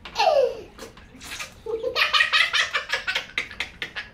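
A toddler laughing hard in fits. A falling squeal at the start, then from about two seconds in a long run of quick belly-laugh bursts.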